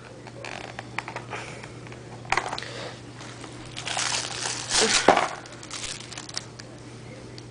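Toy packaging being handled and pulled at while someone struggles to get the toy out: crinkling and rustling with scattered clicks and scrapes, loudest in a couple of bursts about four to five seconds in. A steady low hum runs underneath.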